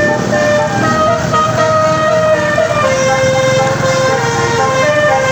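Bus 'basuri' musical horn playing a tune: held horn notes that step up and down in pitch, one after another, over a low engine rumble.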